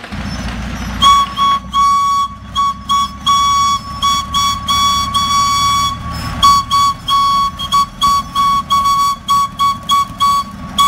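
A high, single-pitched tone sounding in a rapid run of short and long toots, like a coded signal, over a low steady rumble.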